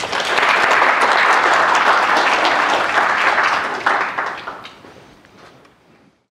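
Audience applauding, a dense steady patter of many hands clapping that thins out and fades away over its last two seconds.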